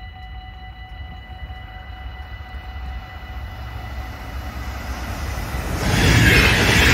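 NS ICM 'Koploper' electric intercity train approaching and passing close by at speed: a rumble of wheels on rail that grows steadily louder, swelling into a loud rush about six seconds in as the carriages go past.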